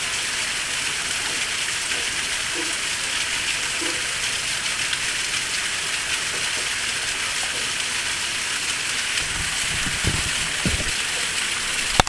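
Waterfall splashing steadily: an even rushing hiss, with a few low bumps near the end.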